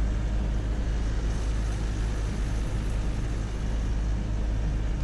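SML Isuzu Samrat GS tipper truck driving on a highway: the diesel engine runs steadily under a steady rush of tyre and road noise.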